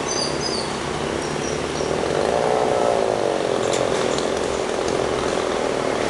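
Chainsaw running as it cuts into a tree, its engine pitch rising about two seconds in and easing back down after three. A few short high chirps sound near the start.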